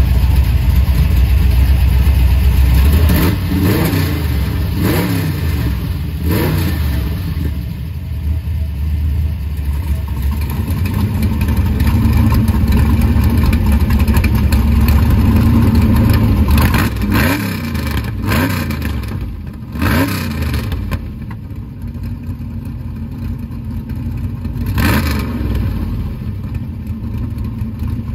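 Chevrolet 409 V8 of a 1962 Biscayne drag car running with a loud, deep exhaust note and revved in several quick throttle blips. The exhaust is loudest in the first part and drops well down after about twenty seconds, as the exhaust cutout valves are opened and closed.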